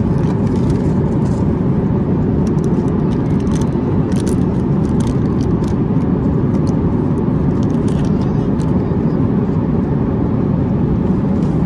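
Steady low rumble of jet airliner cabin noise in flight. Light crinkling of a plastic meal wrapper comes now and then through the middle.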